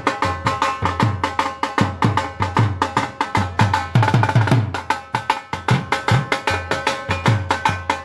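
Outro music: an upbeat track with a fast, even run of sharp percussive taps over a low beat.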